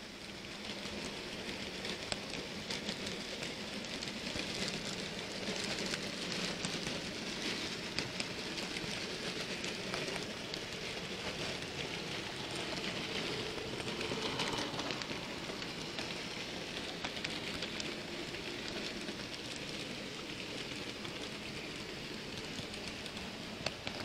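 N gauge model train running along the track, picked up by a camera riding on it: a steady rattling hiss of wheels on the rails, thick with fine clicks.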